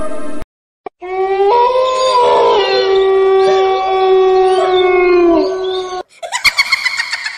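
A long canine howl, held on one pitch for about five seconds with a step up near its start and a sag at its end, used as a horror sound effect. About six seconds in it gives way to a quick run of sharp pulses.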